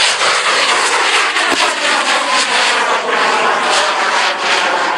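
Bang fai (Thai festival black-powder rocket) motor in flight, a loud steady roar with fine crackling whose pitch slowly falls as it climbs. A single sharp crack sounds about one and a half seconds in.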